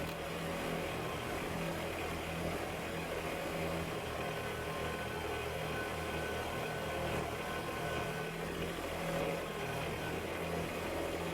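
Kubota BX sub-compact tractor's diesel engine running steadily.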